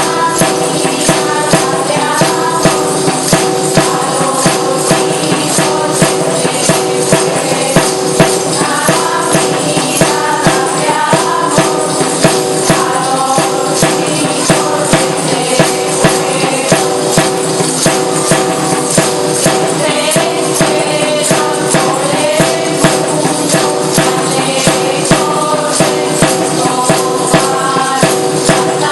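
Asturian folk music: tambourines beating a steady rhythm under a melody line over a steady held drone.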